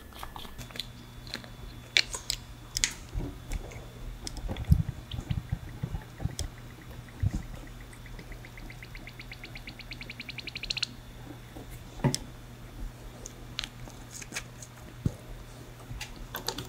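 Brake fluid being handled and topped off into a motorcycle rear brake reservoir cup: scattered small clicks and taps of a bottle and cap, a few dull knocks, and around the middle a run of rapid ticks rising in pitch for about three seconds. A steady low hum underneath.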